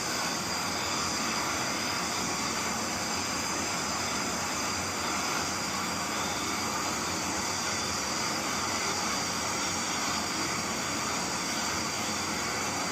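Brazing torch flame burning with a steady hiss while heating a pipe coupling joint.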